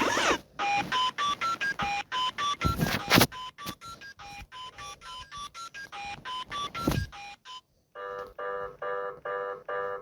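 Electronic alert tones. First comes a run of short beeps that climb in pitch step by step, played twice. For the last two seconds a different alarm takes over: a harsh chord-like tone beeping about three times a second.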